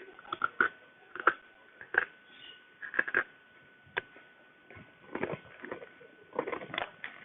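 Takis rolled corn tortilla chips being crunched while chewing close to the microphone, in irregular clusters of sharp crunches with short pauses between. A faint steady high whine runs underneath.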